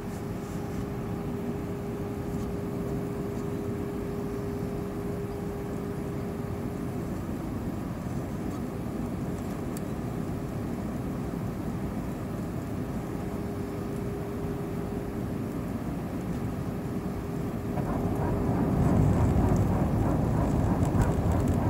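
Cabin noise inside an Airbus A320-232 airliner on approach: a steady rush of airflow and engine drone with a steady hum, which fades out late on. About eighteen seconds in, the noise swells louder and deeper.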